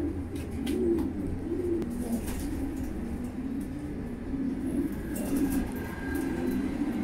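Racing pigeon cooing over and over, a low wavering coo repeating every second or so: courtship cooing between a newly paired couple.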